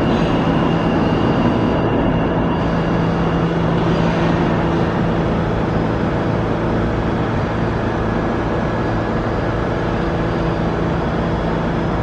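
Alstom R160A-1 subway train running away down the tunnel after bypassing the station: a steady rumble with a low hum, easing off slowly.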